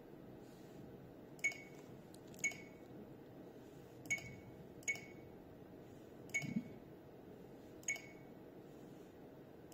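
Short electronic key-press beeps from a Hantek TO1254D tablet oscilloscope as its touch screen is tapped through menu options. There are about seven, roughly a second apart and unevenly spaced, with two in quick succession past the middle.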